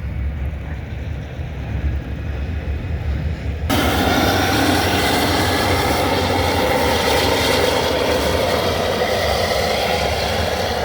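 Steady low vehicle rumble. Nearly four seconds in, a loud, even rush of wind-like noise starts abruptly and carries on over it.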